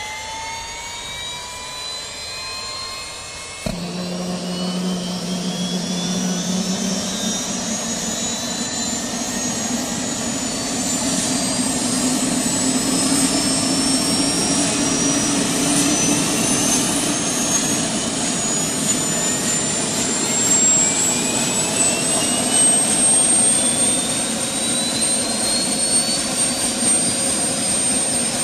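Small battery-powered DC motor spinning a toy helicopter's plastic rotor: a high whine that climbs slowly in pitch, with a lower hum and whirring noise coming in suddenly about four seconds in.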